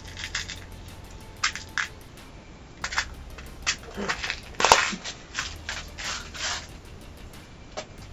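Scattered clicks and rattles of screws and a screwdriver on metal as a motherboard is screwed into a computer case, with a louder clatter about four and a half seconds in.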